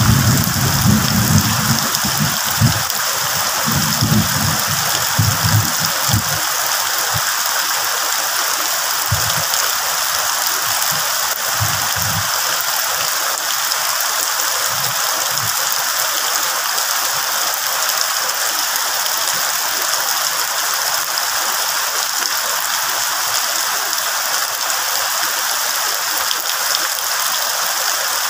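Heavy rain falling steadily on leaves and banana plants, an even dense hiss. Low rumbling fades out over the first six seconds, with a few brief low thumps after.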